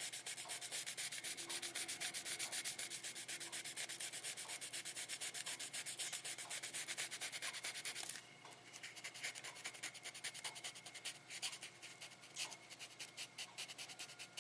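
Wet sandpaper rubbing by hand over the painted body of a scale model car in quick back-and-forth strokes, wet sanding to level orange peel in the paint. About eight seconds in, the strokes become quieter and lighter.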